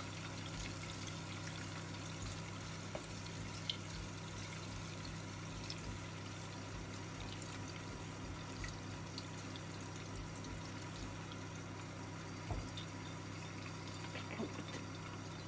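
A saucepan of melted butter heating on a gas hob gives a soft steady hiss over a low hum. A silicone spatula stirs it, with a couple of light taps.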